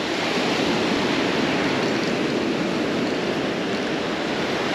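Surf breaking and washing up a sandy beach: a steady rush of waves.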